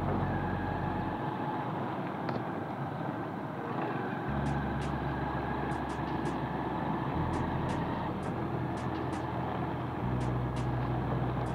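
Motorcycle ridden along a dirt road, engine running steadily under the road noise.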